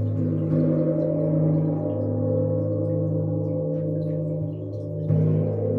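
A large gong rings in a sustained, shimmering wash of overtones and is struck again about five seconds in, swelling louder.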